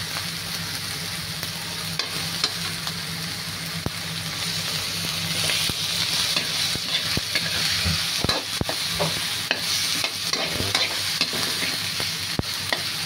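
Tomatoes, shallots and fried fish sizzling in oil in a wok while a spatula stirs and scrapes them. Sharp clicks of the spatula striking the pan come more often in the second half.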